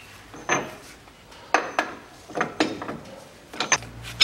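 Ratchet wrench with a 52 mm socket turning the front hub nut of a Land Rover Defender, giving sharp metallic clicks, mostly in pairs about a second apart. A low steady hum starts near the end.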